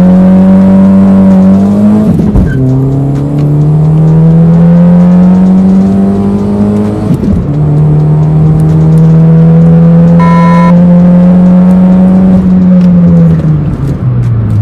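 Modified Nissan March engine under full-throttle acceleration, heard from inside the cabin. The revs climb, drop at gear changes about two and seven seconds in, climb again through third, and fall away near the end as the throttle is lifted. A short beep sounds about ten seconds in.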